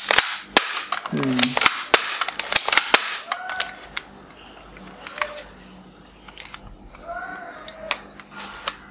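Plastic clicking and clacking from a toy pump-action shotgun as it is handled and its pump and trigger are worked. There is a quick run of sharp clicks over the first three seconds, then only a few scattered ones.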